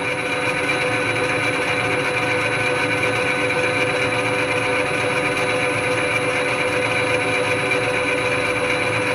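Metal lathe running steadily, its motor and headstock gearing giving a constant hum with a steady whine over it, as the chuck turns a hexagonal metal bar under the cutting tool.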